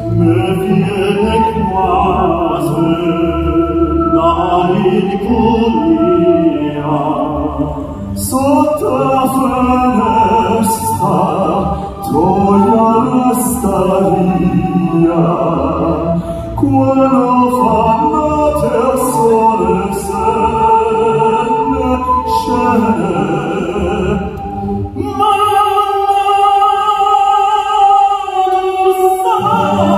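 Operatic tenor voices singing a Neapolitan song through microphones, one voice after another. Near the end comes a long held high note with vibrato.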